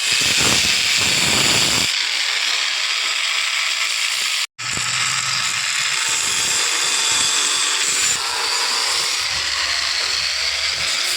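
Arc welding: a steady crackling sizzle from the welding arc, broken by a sudden short silence about four and a half seconds in before it resumes.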